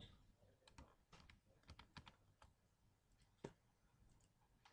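Faint typing on a computer keyboard: scattered single key clicks, with one sharper click about three and a half seconds in.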